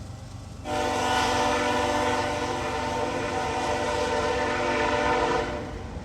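Freight locomotive's Nathan K5HL five-chime air horn sounding one long steady blast of about four and a half seconds, starting just under a second in.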